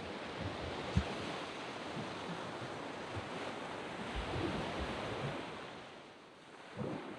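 Sea waves breaking and washing on a sand beach, a steady rushing surf that swells and eases, dropping briefly about six seconds in. A few low thumps of wind on the microphone sound through it.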